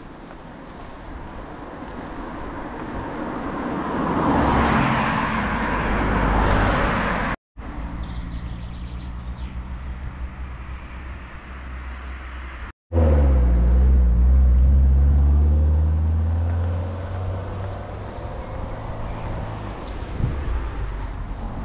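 Motor vehicles passing close by, in three stretches split by abrupt cuts. The first swells up as it approaches; the loudest comes about 13 seconds in, an engine hum that falls in pitch as it goes past.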